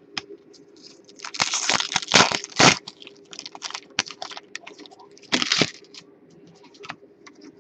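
Plastic wrapper of a trading card pack crinkling and tearing as it is opened, in two loud spells, with small clicks and rustles of cards being handled between them.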